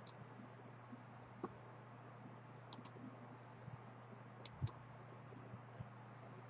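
Computer mouse button clicks: three quick pairs of clicks a second or two apart and one fainter single click, over a faint steady low hum.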